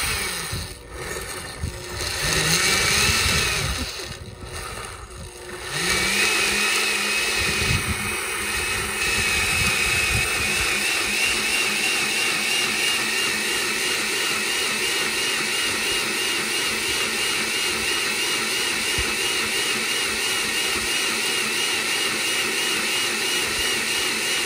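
Electric blender puréeing the mole ingredients: two short runs in the first few seconds, then running steadily with a high motor whine from about six seconds in.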